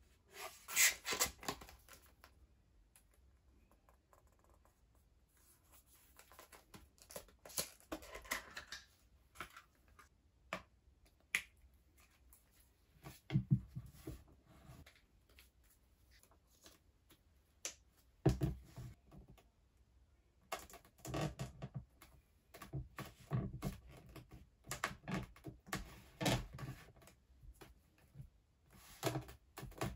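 Hands handling a phone and a folding MagSafe-type tripod stand on a desk: scattered taps, clicks and rustles at irregular intervals as the stand is unfolded and the phone attached and set upright.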